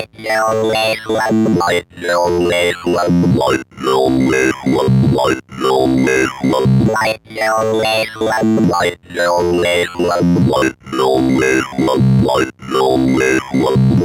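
Waldorf Microwave One wavetable synthesizer playing a repeating sequenced phrase, about one cycle every 1.8 seconds, with short gaps between notes. The bright upper overtones sweep up and down within each note as the synth steps through user-made wavetables.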